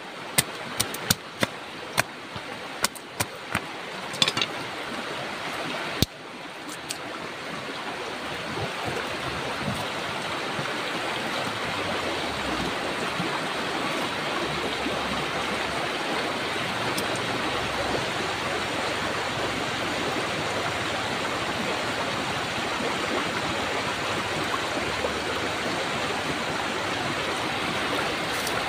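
A machete blade shaving a dry stick into kindling, a quick series of sharp strokes for the first few seconds. Then a steady rushing of a river takes over.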